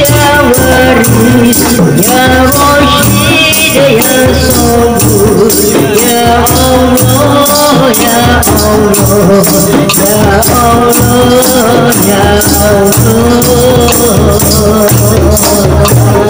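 Qasidah: women singing a devotional song, led by a singer on a microphone, over rebana frame drums and jingling tambourines keeping a steady beat.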